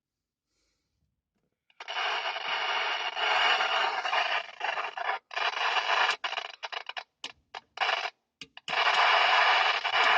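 Euro CB Colorado CB radio's speaker hissing with receiver static. It starts abruptly about two seconds in, cuts out and back in several times in short stretches, then runs on steadily.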